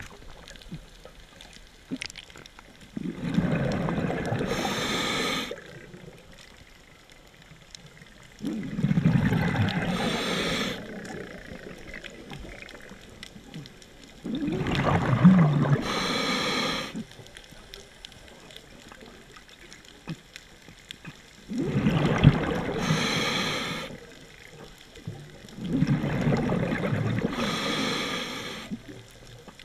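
Scuba diver breathing through a regulator underwater: five bubbly exhalations of about two and a half seconds each, one every five to six seconds, with quieter inhalations between.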